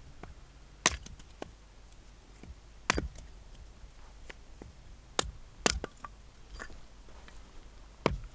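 Small axe splitting firewood on a log chopping block: five sharp chops at uneven intervals, with fainter knocks in between.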